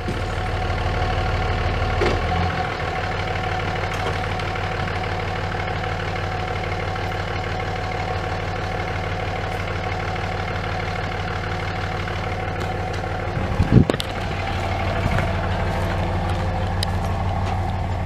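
Dodge Ram 3500 pickup truck engine running steadily while it pulls on a tow chain, with a short loud bang about 14 seconds in.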